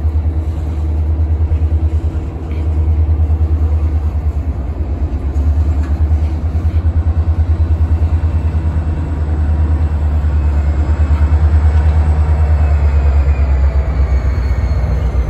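Freight cars (boxcars, then a tank car) rolling slowly past, shoved by diesel locomotives, with a steady deep rumble. A faint high whine slides downward from about two-thirds of the way in.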